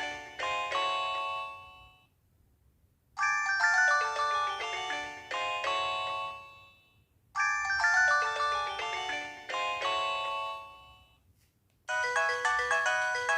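LG MD5330 mobile phone playing a polyphonic ringtone: a short melodic phrase of mostly descending notes, repeating three times with brief pauses between. About 12 seconds in, a different, busier ringtone with an even pulse starts.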